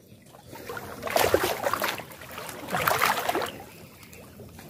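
Water splashing and sloshing in two bursts, each lasting about a second.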